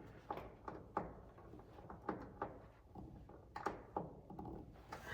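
A few faint, irregular clicks and light knocks of hand work, with tools or small parts being handled.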